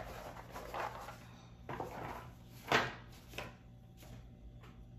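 An old cardboard bingo game box being handled, slid and set aside on a tabletop: a few brushing, rustling sounds and light knocks, the sharpest a little under three seconds in.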